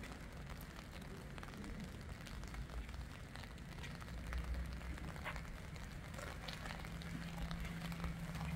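Light rain falling on wet paving, with scattered footsteps and a low rumble underneath.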